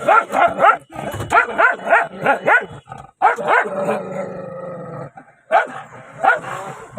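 A dog barking in quick runs of short barks, several a second, with a short break about five seconds in.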